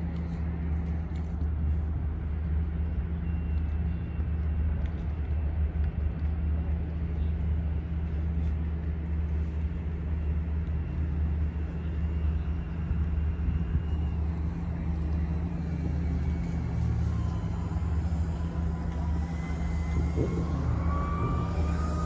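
Steady low motor rumble, unchanging in level.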